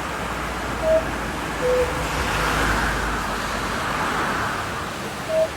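The world's largest cuckoo clock sounding its two-pipe 'cu-ckoo', a falling two-note call, about a second in, with the next call starting near the end: the clock calling the hour. A swell of hiss rises and fades between the calls.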